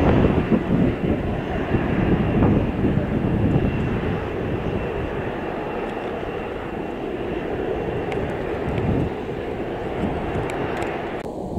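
Jet airliner passing the listener, its engines rumbling with a steady high whine on top, the sound slowly fading; the higher part drops away suddenly near the end.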